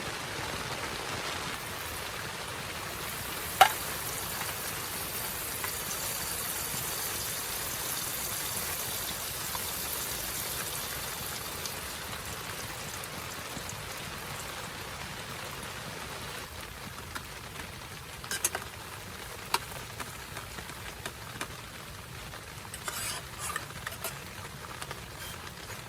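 Steady hiss of rain, with a sharp click a few seconds in and scattered small clicks and taps later on.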